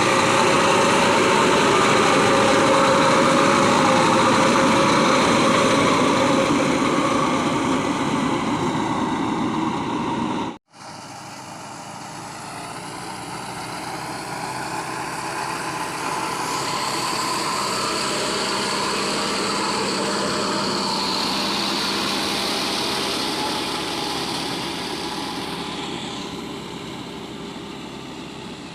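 Backhoe loader's diesel engine running steadily. It cuts off abruptly about a third of the way through, then the engine sound builds up again, holds and fades near the end.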